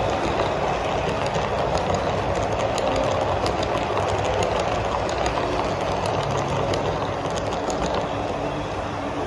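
HO-scale model passenger train running past on the track: a steady rumble with many quick clicks of its wheels over the rails, easing slightly near the end as the last coach goes by.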